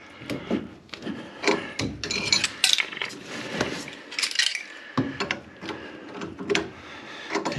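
Pliers grating and clicking on a central heating pump valve's metal nut as the valve is worked loose and unscrewed: metal scraping on metal with many sharp clicks.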